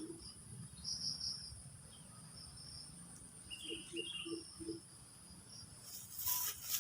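Insects, crickets among them, calling steadily at a high pitch with pulsing trills. About halfway through, a short run of four low calls from an unidentified animal, and near the end a brief burst of noise.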